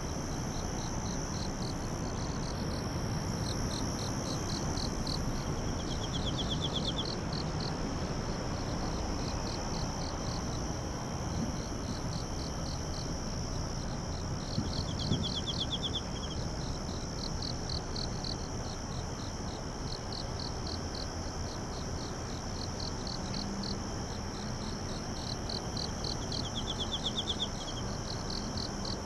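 Night insects, crickets among them, calling in chorus: a high chirp pulsing about four times a second over a steady high drone, with a short trill three times, over a low background rumble.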